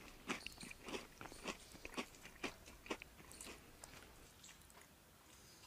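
Faint wet chewing and mouth smacks of a man eating spicy Maggi noodles fast by hand: a string of short, sharp clicks that thin out over the last second or two.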